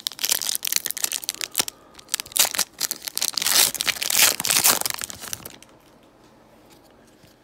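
Panini Prizm trading card pack's foil wrapper being torn open and crinkled by hand: a dense run of crackles, loudest near the middle, that stops about five and a half seconds in.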